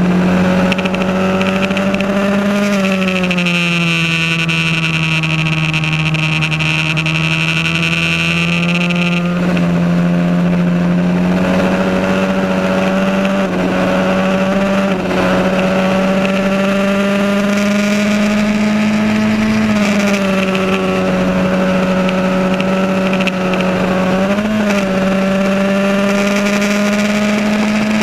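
Onboard sound of a 1982 Van Diemen Formula Ford's 1600 cc four-cylinder engine running hard at racing revs. The pitch climbs slowly under throttle and drops at gear changes, about three seconds in and again about twenty seconds in, with a quick blip a few seconds later and another drop right at the end.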